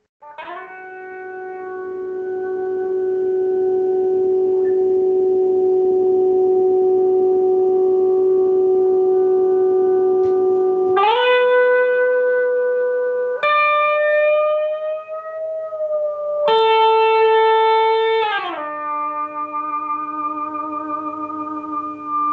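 Electric guitar with a sustainer switched on. A single note builds up over the first few seconds and then holds at full strength without dying away for about ten seconds. The player then slides up to higher notes, each held steady, one with a slight waver, and glides back down to a lower held note near the end.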